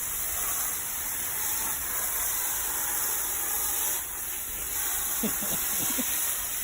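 Steady hissing noise, like wind or running water, with a few faint short calls or squeaks about five seconds in.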